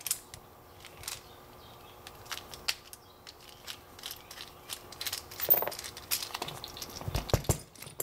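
Small metal clicks, taps and scrapes of a pick and screwdriver working inside an American Series 5200 padlock body as it is taken apart to get the brass core out. The clicks come more often and louder in the second half.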